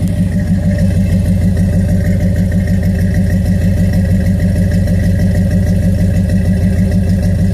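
A 350 cubic inch small-block Chevy V8 idling through headers and a Thrush welded dual exhaust, heard close to the tailpipe. It makes a loud, steady, rhythmic rumble with no revving.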